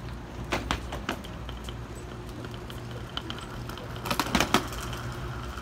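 Clicking and clattering of wheeled suitcases and footsteps on the floor, with a louder burst of clacks about four seconds in, over a steady low hum.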